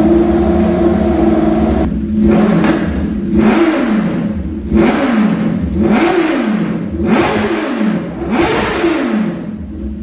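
BMW S1000RR inline-four engine revving through an aftermarket exhaust: a held, steady high idle for about two seconds, then about six throttle blips in a row, each rising in pitch and falling back. The sound cuts off suddenly at the end.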